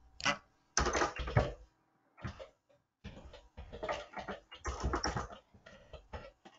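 Computer keyboard typing in irregular bursts of quick keystrokes, a short burst about a second in and a longer run through the second half.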